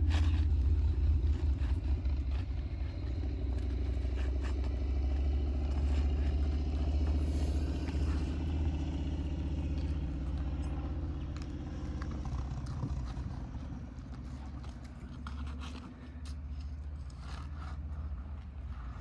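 A steady low rumble that fades over the second half, with scattered scrapes and clicks from a pry bar working at nails under asphalt roof shingles.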